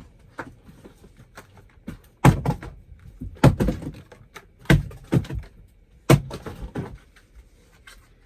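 Four heavy thunks about a second apart, as items from the box are dropped or set down hard, with lighter knocks and handling noise between.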